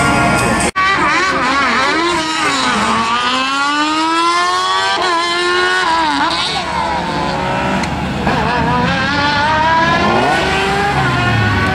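Race car engine accelerating hard and easing off repeatedly. Its pitch climbs, drops sharply at a gear change or lift about five seconds in, and climbs again. The sound cuts out for an instant less than a second in.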